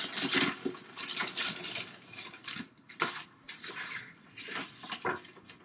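Clear plastic bag crinkling and rustling as a paper instruction manual is pulled out of it, in irregular crackles that thin out near the end.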